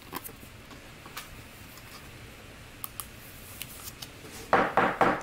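Trading cards being handled and flipped, with soft clicks and slides of card stock and plastic sleeves, then a louder noisy rustle in three quick pulses near the end.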